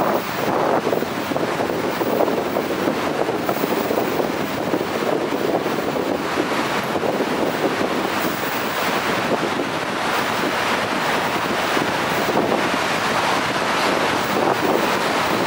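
Steady noise of tyres and traffic on the road inside a tiled road tunnel, even throughout, with no distinct engine note or horn.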